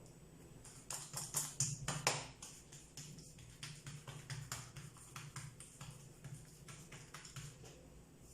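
Hands patting and folding oiled msemen dough on a work surface: a run of soft, irregular taps, a few of them louder near two seconds in.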